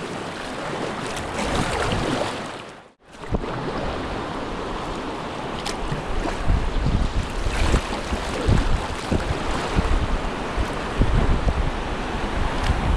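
Rushing whitewater of a river rapid, with wind buffeting the microphone. The sound cuts out briefly about three seconds in, then carries on.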